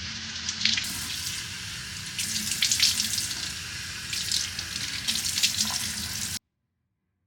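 Water running from a tap into a sink, with splashing that rises and falls, cutting off abruptly about six seconds in.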